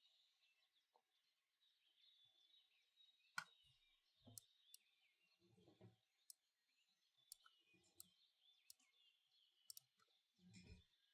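Faint recorded birdsong ambience chirping steadily, with a pause in the typing broken only by a few isolated sharp clicks and some soft low thuds; the loudest click comes about three and a half seconds in.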